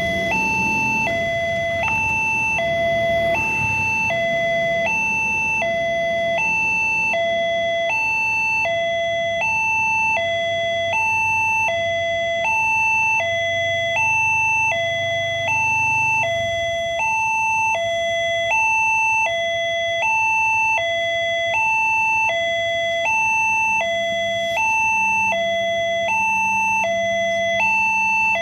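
Railway level-crossing alarm, a newly installed unit, sounding its warning. It is a two-tone call that switches between a lower and a higher tone about every half second, meaning the crossing is closed for an approaching train. Low traffic engine rumble sits under it for roughly the first half.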